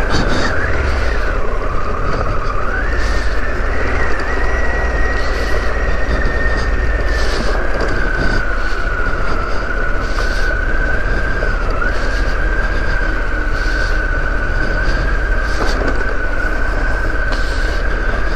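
Harley-Davidson Pan America's 1250 V-twin engine running on the overrun, engine braking down a steep off-road descent. A steady whine holds throughout and dips in pitch twice.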